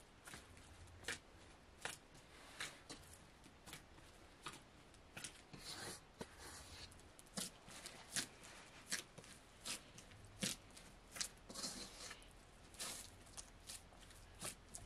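Skin being pulled and torn off a raw whole chicken by hand over a metal bowl: irregular short snaps and rips, a few a second, with a few longer tearing sounds.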